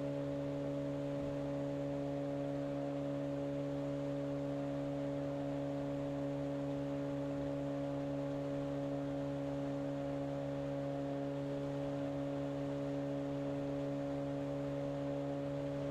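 A steady hum of several held pitches, unchanging throughout.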